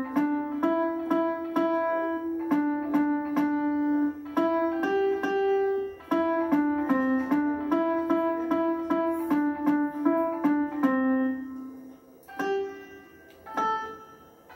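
A simple melody picked out on a piano by a young child, one note at a time with a single finger, about three notes a second. The tune stops about eleven seconds in, and two more single notes follow near the end.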